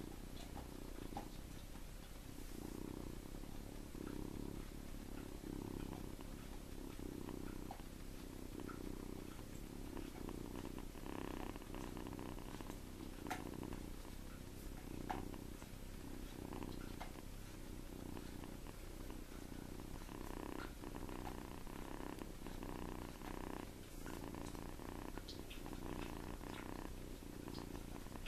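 Seven-week-old kitten snoring in its sleep: a low purring rumble that swells and fades with each breath, about every second and a half. A couple of brief faint clicks sound midway.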